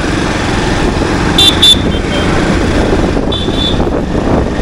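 Wind and road noise from riding through motorcycle and car traffic, with two quick high-pitched horn beeps about a second and a half in and a longer beep just after three seconds.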